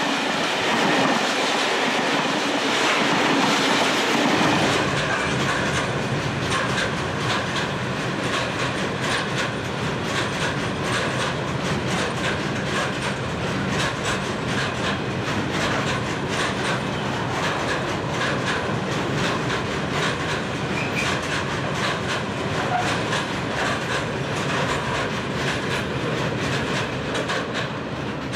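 A train rolling past, its wheels clicking rapidly and steadily over the rail joints.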